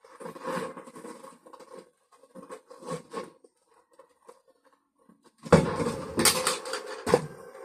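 Objects being handled: scattered clattering and scraping, quieting in the middle, then a louder bout of rattling and knocking about two seconds before the end.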